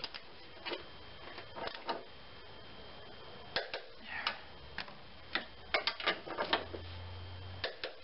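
Socket wrench and ratchet being worked on engine-mount bolts: irregular single metallic clicks and clinks, a few close together about six seconds in. A low hum comes in for about a second and a half near the end.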